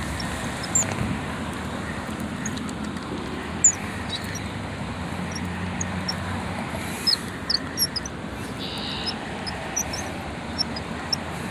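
Steady outdoor background noise, a low rumble like distant road traffic, with short high bird chirps scattered throughout and a few faint clicks.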